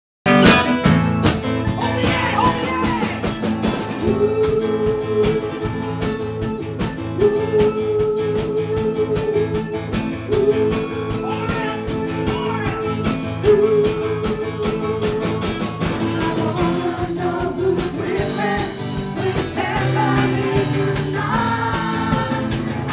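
Live band playing a song's instrumental opening: electric keyboard, guitars and a drum kit together, with a held note repeated phrase after phrase and a busier melody coming in near the end.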